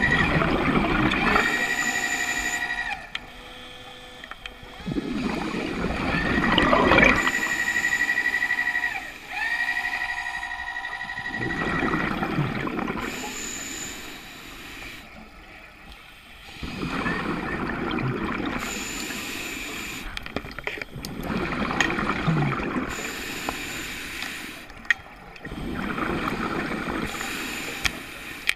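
A diver breathing underwater on an open-circuit scuba regulator: a cycle of breaths about every four to five seconds, each with a rush of gurgling exhaust bubbles, about six in all. The first few inhalations carry a steady whistling hum from the regulator.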